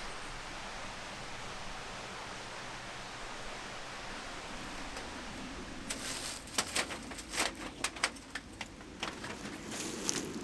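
A steady, even hiss, then, from about six seconds in, a run of irregular sharp clicks and knocks.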